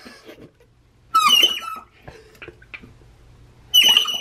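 Plastic bulb horn (the Honky Horn) squeezed while held underwater in a full sink, giving two short squeaky honks about two and a half seconds apart.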